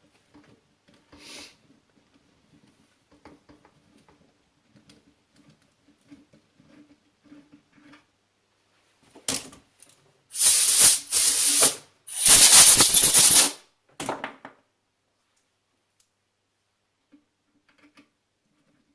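Faint scattered clicks of a thread tap being worked in a metal hole, then five loud hissing bursts of about a second each, which start and stop abruptly.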